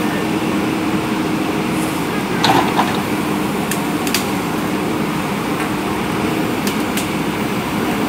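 A JCB 3DX backhoe loader's diesel engine running steadily while the backhoe arm works. There are a few sharp clicks and knocks, with a short louder clatter about two and a half seconds in.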